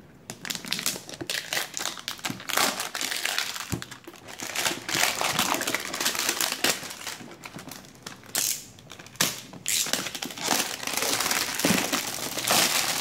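Clear plastic shrink-wrap being peeled and pulled off a cardboard box, crinkling and crackling continuously with sharp snaps as the film tears and bunches.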